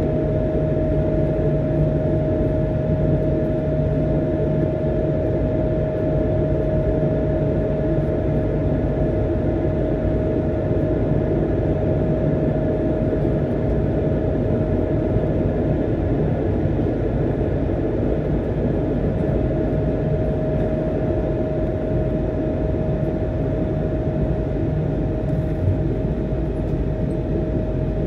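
Cabin noise of an Airbus A220-100 climbing after takeoff: the steady rumble of its Pratt & Whitney PW1500G geared turbofan engines and rushing air, with a steady high tone above it.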